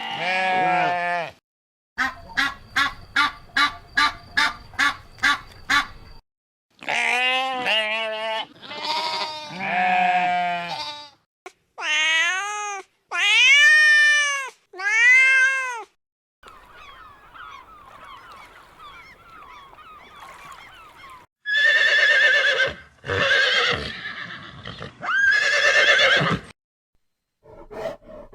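Farm animal calls in a string of separate clips. There are goat-like bleats, then a quick run of about a dozen short pulsed calls, then three loud calls that rise and fall in pitch, a quieter stretch, and three loud harsh calls near the end.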